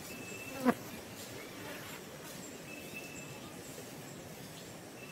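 Insects buzzing, a high steady note that comes and goes over a steady background hiss. A single brief sharp sound less than a second in is the loudest thing heard.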